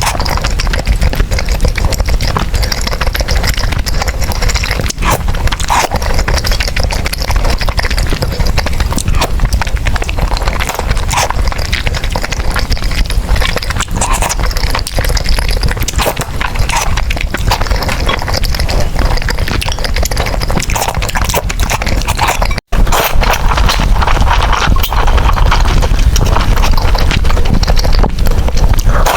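Close-miked mouth sounds of someone eating noodles: dense, continuous wet chewing and slurping clicks. A split-second dropout cuts in about three quarters of the way through.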